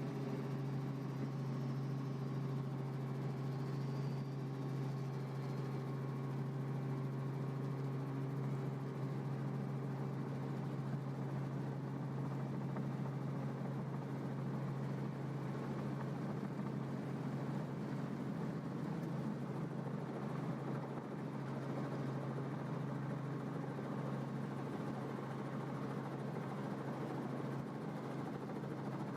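Helicopter in flight: a steady engine and rotor drone with a strong low hum, unchanging in level.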